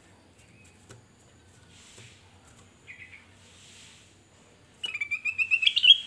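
Caged ruby-throated bulbul (kutilang emas) singing: a faint short note about halfway, then a fast run of about ten chirps a second from near the end, rising in pitch and growing louder.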